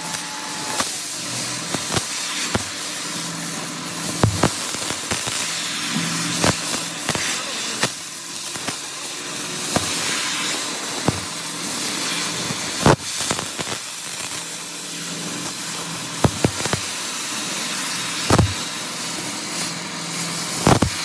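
Oxy-fuel gas welding torch hissing steadily while welding filler rod into a piston's ring grooves, with sharp pops and crackles every second or two, one much louder about two-thirds of the way through.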